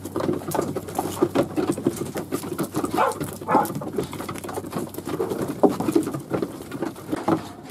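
A tightly packed mob of sheep shuffling and milling, their hooves pattering on the ground, with many irregular small knocks.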